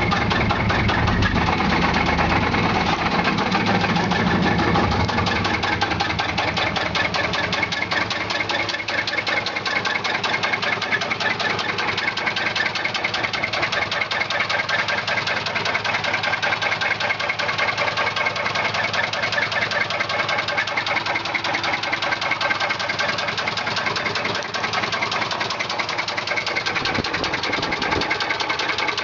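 1995 Chevy Silverado's 4.3 Vortec V6 engine running with a loud, rapid knocking, a fault the owner can't identify. The low rumble is heavier for the first five seconds or so, then settles.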